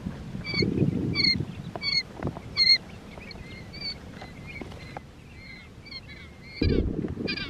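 Quail chicks peeping: short, high calls repeating about twice a second, over a low rumble that is heaviest in the first second and again near the end.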